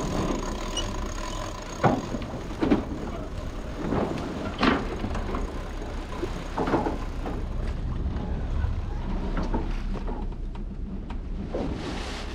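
Sailing yacht's engine running steadily under a low rumble. Several sharp knocks and clatters come from deck gear as the gennaker is hauled up at the mast, most of them in the first seven seconds or so.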